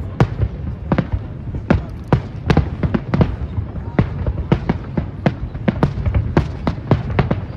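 Fireworks going off: a string of sharp bangs at irregular intervals, about two or three a second, over a steady low rumble.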